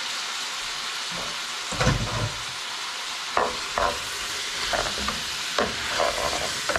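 Chicken gizzards and hearts sizzling in hot fat with onions in a stainless steel pot, while a wooden spoon scrapes and knocks against the pot as they are stirred. A heavier thump comes about two seconds in.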